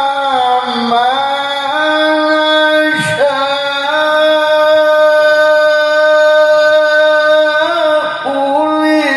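A male qari chanting Qur'an recitation in melodic tilawah style, drawing out sung vowels with ornamented pitch turns. There is a brief break about three seconds in, then one long held note through the middle before another turn near the end.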